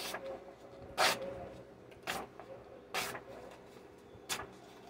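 Sharp fixed-blade tradesman's knife slicing through a sheet of paper held in the air: about five short, crisp swishes roughly a second apart, a paper-slicing sharpness test.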